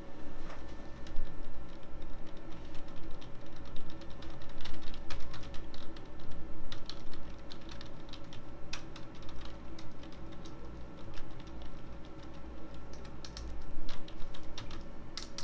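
Typing on a computer keyboard: a continuous run of quick key clicks, over a steady low hum.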